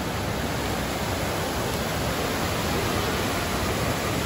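Steady rushing of a river's waterfall and rapids, white water pouring over rock ledges, even and unbroken.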